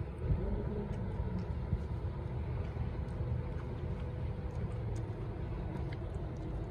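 Outdoor street background: a low, fluctuating rumble of wind on the microphone mixed with traffic noise.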